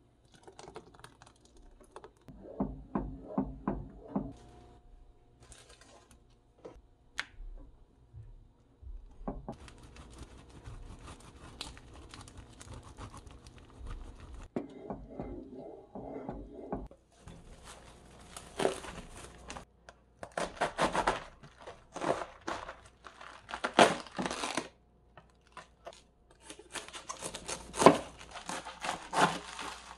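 Kitchen cooking sounds: a wooden spoon scraping and stirring in a pot of soup, then, in the second half, a knife crunching through a head of cabbage on a wooden cutting board in repeated sharp strokes that are the loudest part.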